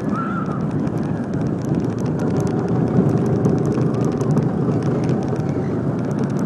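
Go-kart engines running steadily as the karts drive around the track, heard from aboard a moving kart.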